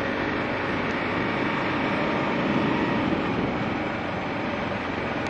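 2009 Kawasaki KLR650's single-cylinder engine running steadily under an even, rushing hiss of wind and road noise.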